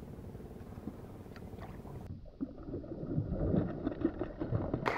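Hooked peacock bass thrashing and splashing at the water's surface beside the boat, the splashing growing louder after a low steady hum at first, with one sharp, loud splash near the end.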